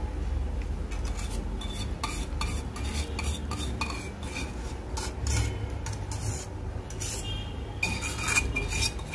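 A spoon scraping and clinking against a saucepan, again and again from about a second in, as thick caramel sauce is scraped and poured out of it, over a low steady hum.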